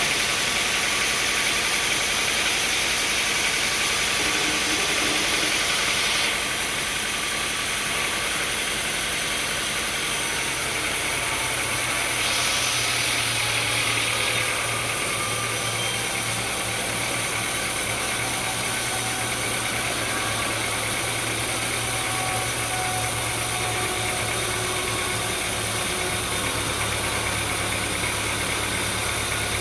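An engine running steadily, its sound shifting slightly a few times, with a low hum coming in about a third of the way through.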